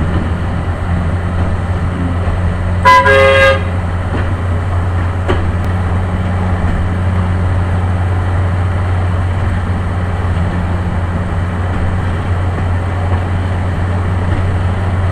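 Vehicle engine running steadily, with one short horn toot about three seconds in, the loudest sound.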